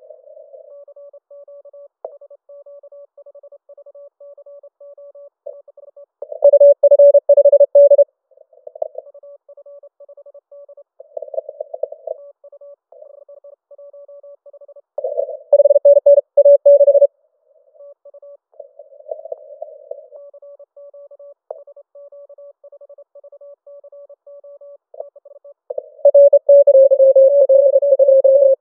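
Morse code (CW) tones near 600 Hz keyed on and off through a Yaesu FT-891 HF transceiver during a contest. A steady run of quieter keying is broken by three much louder stretches of fast keying: a few seconds in, around the middle, and near the end. A fainter higher-pitched signal keys in the background.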